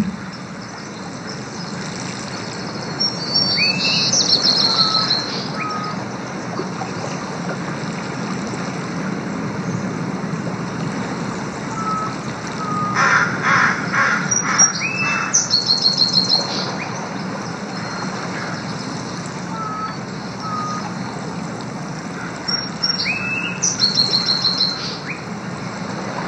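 Birds chirping and trilling in short bursts over a steady background hiss. The same cluster of calls comes back three times, about every ten seconds, as in a loop.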